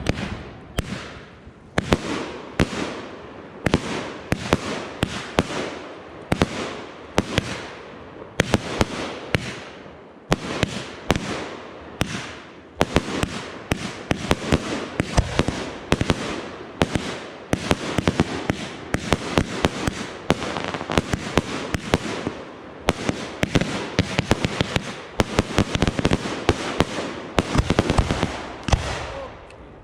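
Fireworks display: a continuous string of sharp bangs and crackling, coming faster and denser from about halfway through.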